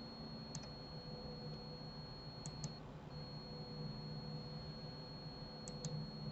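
Computer mouse clicking, three short pairs of clicks a few seconds apart, over a steady low electrical hum and a faint high whine.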